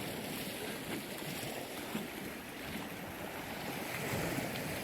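Steady wash of sea waves breaking against a rocky shore.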